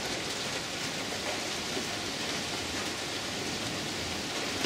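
Steady rain falling during a thunderstorm, an even hiss with no thunderclap.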